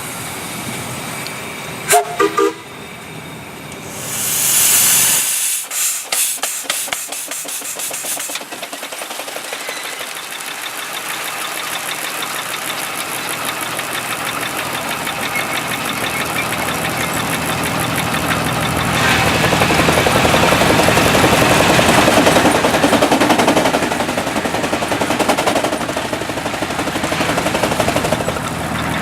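Half-scale Case steam traction engine driving a sawmill: a brief whistle toot about two seconds in, then a loud burst of steam hiss, followed by rapid, even exhaust beats and steady running under load that grows louder in the second half.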